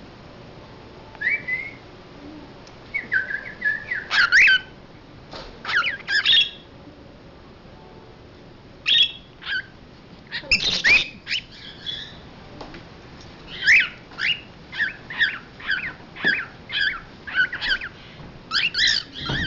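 Cockatiel calling in scattered bursts of short whistled chirps that slide up and down in pitch, with pauses between them. The calls come in a faster, steadier run over the last several seconds.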